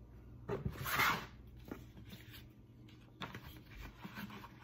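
Paper rustling as a stiff paper envelope is slid off a cardboard gift box, with a louder swish about a second in and softer rustling near the end.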